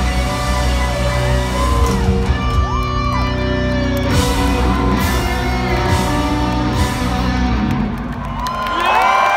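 Live rock band playing held closing chords, with the grand piano heard in front, through a large hall's PA. Audience whoops and shouts sound over the music, swelling into cheering near the end.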